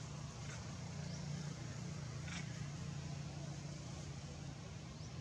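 Steady low rumble with two brief high squeaks, about half a second and two and a half seconds in.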